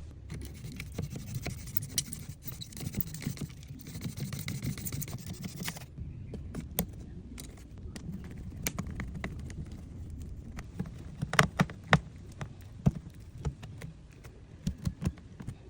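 Scattered light clicks, taps and scrapes of small objects being handled, with a cluster of sharper clicks about eleven and a half seconds in and a few more near the end.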